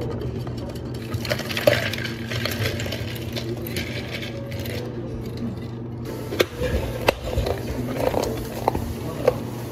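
Ice clinking from a scoop into a plastic cup, then plastic lids snapped onto cups in a few sharp clicks, over a steady low hum of café equipment.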